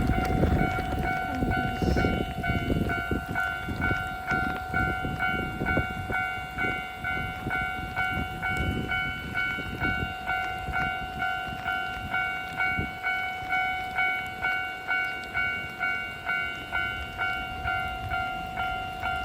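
Japanese level-crossing warning bell ringing its repeated electronic ding, about one and a half strikes a second, as a locomotive-hauled train rumbles over the crossing, the rumble fading over the first several seconds while the bell keeps ringing.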